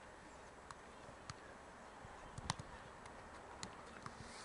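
A ball being juggled: a handful of short, soft thuds as it is struck by foot, thigh or head, roughly one touch a second, the loudest about halfway through.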